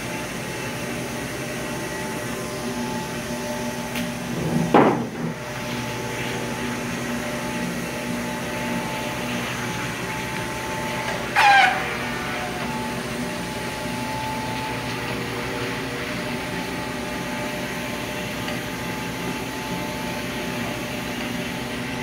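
Electric rotary floor scrubbing machine running steadily as its pad scrubs a wet concrete floor, a constant motor hum. Two brief squeaks cut in, a rising one about five seconds in and a falling one about eleven and a half seconds in.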